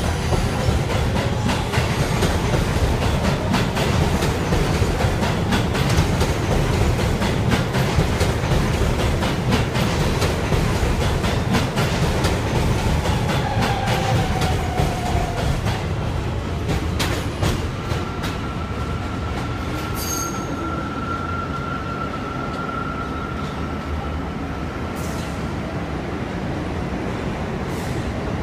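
New York City Subway Q train running past on the platform track: a heavy rumble of steel wheels on rail with rapid clicking over the rail joints, easing off a little past halfway as the last cars go by. In the later part a thin, steady wheel squeal rings out for several seconds.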